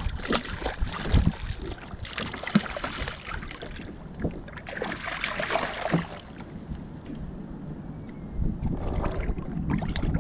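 Wind rumbling on the microphone and water splashing while a hooked fish is played on a spinning rod and reel, with louder bursts of splashing about two and five seconds in and scattered knocks of handling.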